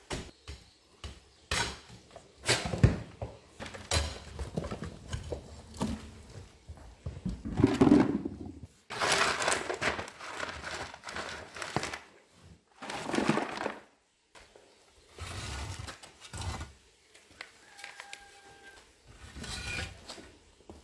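Irregular knocks, thunks and scraping as the door of a wood-fired pottery kiln is opened after a bisque firing. There is a burst of scraping about eight to ten seconds in, and a short squeal near the end.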